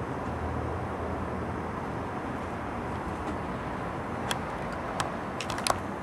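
Steady low rumble of distant street traffic, with a few sharp clicks in the last two seconds, the loudest a quick cluster near the end.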